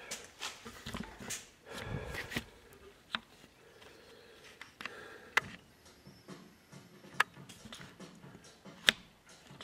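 Four sharp, single clicks spread across the stretch, the last the loudest, among quieter rustling and shuffling handling noise.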